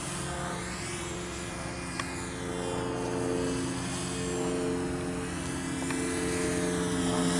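Walkera F210 racing quadcopter's motors and propellers whining steadily in flight, with an airy hiss that sweeps up and down as it flies low past.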